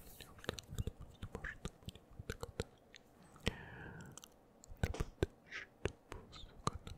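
Close-up mouth sounds into a foam-covered microphone: an irregular run of wet lip smacks and tongue clicks, several a second, with a few short breathy whispers between them.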